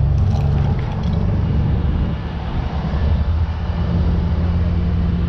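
Rollback tow truck running while its hydraulics tilt and slide the flatbed back: a steady low engine drone with a steady hum over it.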